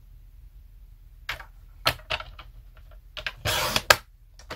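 Paper being cut to size with a craft cutting tool: a few light clicks and taps, then a short slicing sound near the end that finishes in a sharp click.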